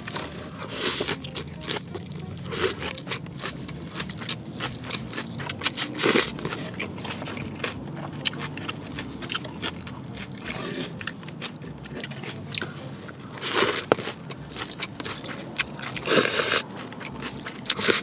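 Close-miked eating sounds: rice vermicelli noodles slurped and chewed, with small crunches and wet mouth clicks throughout. About half a dozen louder slurps stand out over the steady chewing.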